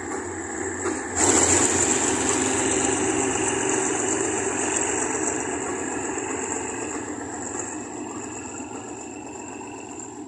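GEK-class diesel-electric locomotive No. 4005 running past at close range with its engine and wheels sounding. It gets suddenly louder about a second in, then fades steadily as it moves away.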